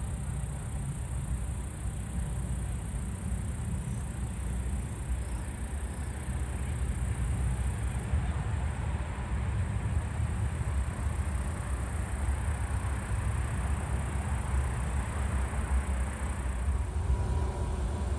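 Steady low rumble of a passing vehicle, growing louder about halfway through.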